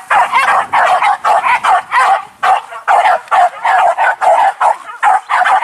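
Hunting dogs barking and yipping in a rapid, unbroken run of short, high barks, about three a second.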